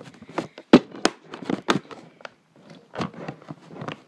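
A clear plastic container being handled while its stuck lid is worked at: a run of irregular plastic clicks, knocks and crackles.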